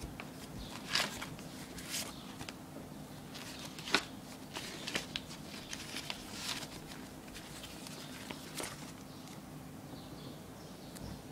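Paper mailing-label stickers being handled and leafed through by hand: irregular crisp rustles and flicks, the sharpest about four seconds in, over a faint steady hum.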